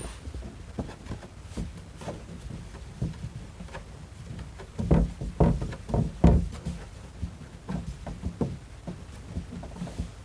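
Scattered light knocks and clicks of small fittings being handled, with a louder cluster of knocks about five to six and a half seconds in.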